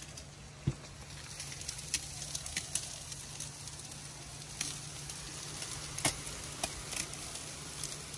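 Marinated chicken thighs and hot dogs sizzling on a charcoal grill grate, with scattered sharp pops and crackles.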